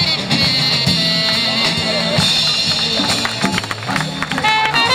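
Live jazz combo playing: drums and a bass line under an alto saxophone, with a trumpet coming in near the end.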